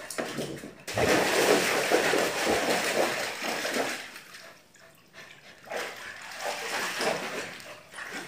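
Water splashing as a husky jumps into a plastic paddling pool and moves about in it. The splashing starts suddenly about a second in and is loudest for the next few seconds, then eases to lighter sloshing.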